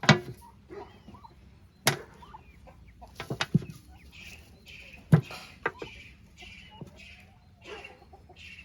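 Chickens clucking repeatedly, with several sharp knocks scattered through, the loudest near the start and about five seconds in.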